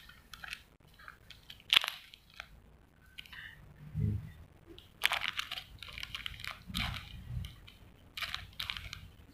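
Clear plastic lure packets crinkling and rustling as they are handled and set down, in several short bursts with a sharp crackle about two seconds in. A couple of low dull thuds come around the middle and later.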